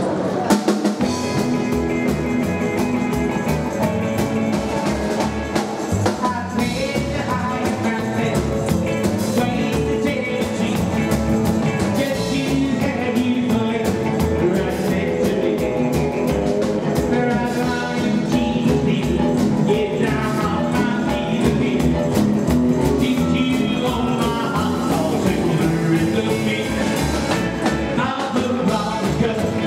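Live rock 'n' roll band playing, with a man singing lead over electric and acoustic guitars, double bass and drums with a steady beat.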